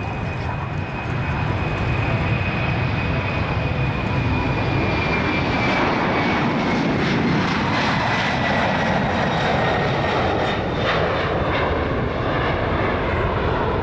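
Boeing KC-767 tanker's twin turbofan engines at takeoff power as it lifts off and climbs past: a steady, loud jet noise with a thin high whine that slowly falls in pitch.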